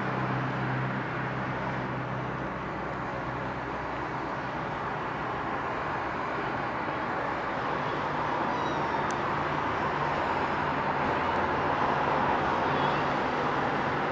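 Steady wash of distant city traffic noise, with a low hum in the first couple of seconds that fades away.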